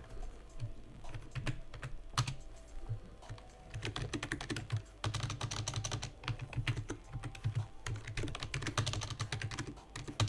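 Typing on a computer keyboard: scattered keystrokes at first, then a quick steady run of keystrokes from about four seconds in.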